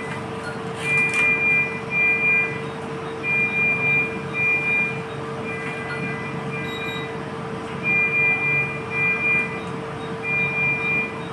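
Repeating high electronic beeps of one pitch, mostly in pairs and each about half a second long, every few seconds over a steady hum.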